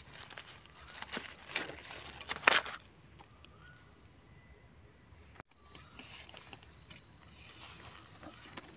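Insects calling steadily in two high, unbroken tones. Over them come short rustles and scrapes of hands working through dry leaves and soil, the sharpest about two and a half seconds in.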